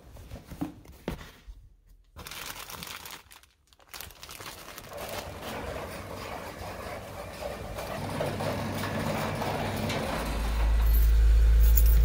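Rustling and light clinking as jars and containers are packed into a fabric shopping bag. After a cut, a steady mechanical noise builds, and about ten seconds in a loud, steady, deep rumble sets in.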